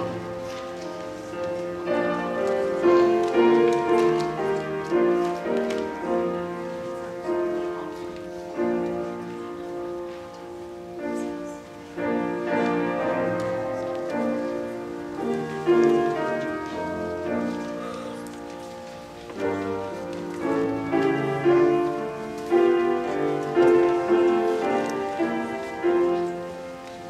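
Slow instrumental piano music, chords and melody notes struck and left to ring.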